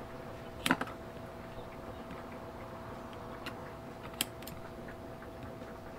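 Scissors snipping double-sided mounting tape off the roll: a quick cluster of sharp clicks just under a second in and another sharp click about four seconds in, over a faint steady hum.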